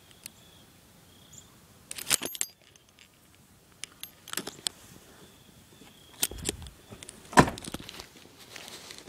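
Metallic jingling and clicking in a few short bursts, the loudest about three-quarters of the way through, like keys being handled.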